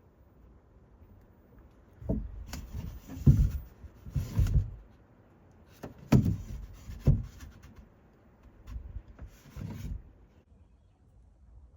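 A series of dull, irregular knocks and thuds from an Audi Q7's rear door, coming in two clusters with short gaps between them.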